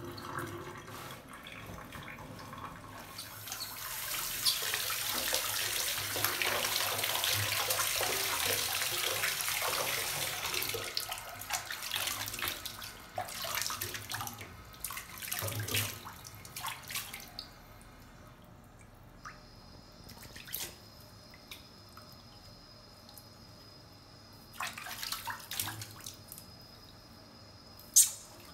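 Water running from a sink tap and splashing as a baby monkey is washed under it. The flow is loudest for the first third, then breaks into scattered splashes and drips, with a sharp knock near the end.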